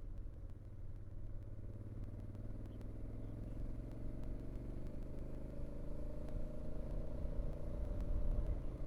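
A vehicle engine running while driving, with low rumble, its pitch rising slowly as it gathers speed.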